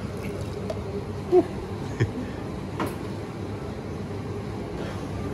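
Draught beer pouring from a bar tap into a plastic cup over a steady low hum, with a few sharp knocks, the loudest about one and a half seconds in.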